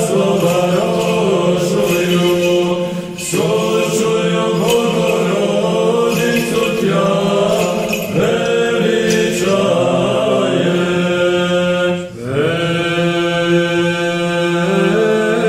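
Male voices singing Orthodox liturgical chant over a held drone note, with the melody moving above it. The singing stops briefly between phrases, most clearly about three and twelve seconds in.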